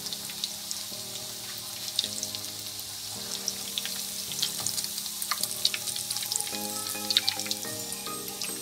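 Potato-topped bread slices shallow-frying in hot oil: a steady sizzle with frequent crackling pops that grow busier after the middle. Soft background music plays underneath.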